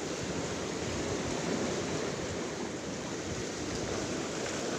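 Sea surf washing steadily around the concrete tetrapods of a breakwater.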